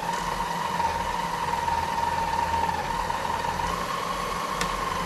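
Huina K3362 1:14 RC hydraulic dump truck running on its stand: a steady mechanical whine that steps up slightly in pitch about two thirds of the way through, over a low hum.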